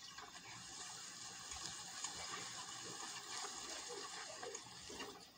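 Faint, steady hiss: the quiet ambience of a film soundtrack playing through a computer's speakers, picked up by a phone.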